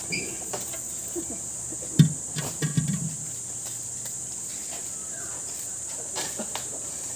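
Insects keep up a steady high-pitched drone, while workers shift sacks and plastic containers in the cargo box of a truck: a heavy thud about two seconds in, followed by a few lighter knocks and bumps.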